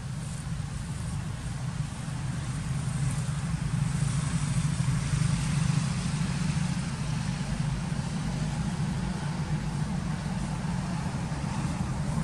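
A motor vehicle's engine running, a steady low hum that grows louder toward the middle and then eases off slightly, like traffic passing.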